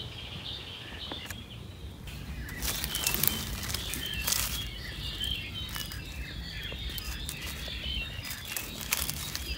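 Small birds chirping repeatedly in dry forest, with bursts of rustling and clicking, loudest from about two and a half to four and a half seconds in.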